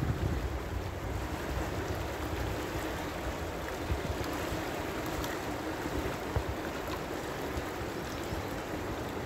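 River water rushing steadily past the bank, with irregular low wind buffeting on the microphone.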